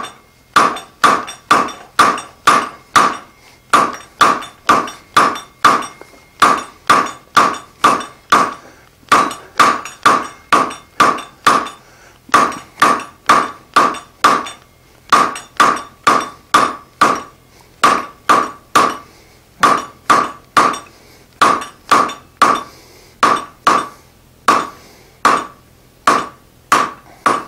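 Hand hammer striking a hot steel bar over the anvil horn in a steady rhythm of about two blows a second, each blow with a short metallic ring, drawing the bar out longer and thinner. The hammering stops briefly a few times.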